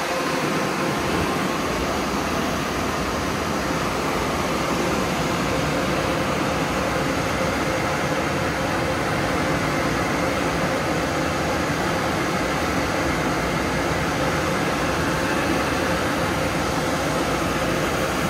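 Car wash air dryer blowers running steadily, a loud rush of blown air with a faint steady hum under it, drying a car at the end of a touchless wash.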